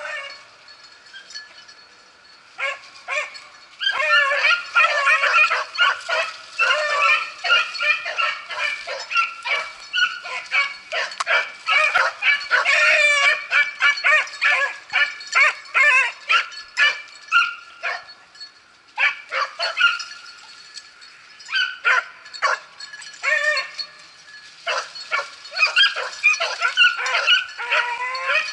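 Beagles baying and yelping on a rabbit's trail. Many short, overlapping calls start a few seconds in, pause briefly past the middle, and then pick up again.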